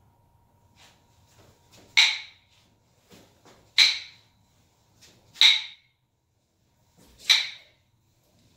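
Nunchaku swung hard through a kata: four sharp swishes, about one and a half to two seconds apart.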